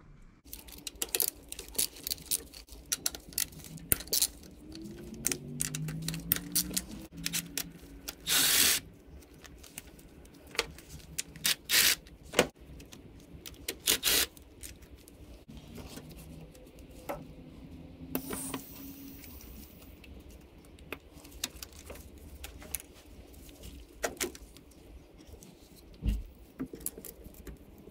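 A cordless ratchet running in short spurts, loosening the 12 mm bolts that hold the fuel injectors, amid many light metallic clinks and rattles of tools, bolts and parts being handled.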